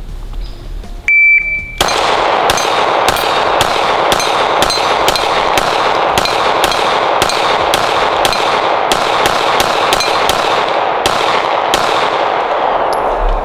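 A shot-timer beep about a second in, then a fast string of pistol shots from a Sig Sauer P320 X5 Legion, about two to three a second for around eleven seconds. Steel plate targets ring on the hits.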